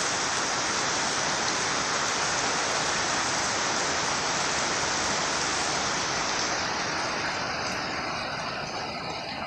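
Very heavy rain pouring down in a steady, dense hiss, softening slightly and growing a little duller in the last few seconds.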